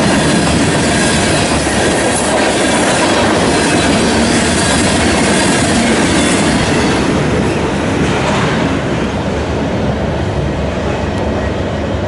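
Covered hopper cars of a freight train rolling past at about 48 mph, steel wheels running on the rail. About seven seconds in the last car goes by, and the sound fades to a lower rumble as the train moves off.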